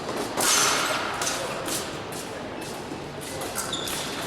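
Fencers' footwork on the piste: shoes stamping and squeaking in quick, irregular steps, with a louder rush of noise about half a second in.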